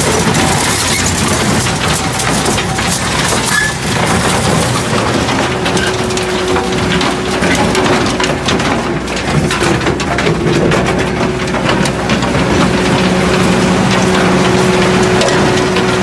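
Arjes Impaktor 250 mobile crusher running with its engine and steadily humming tooth shafts, under a dense, continuous clatter of concrete pieces being broken up in the crushing chamber.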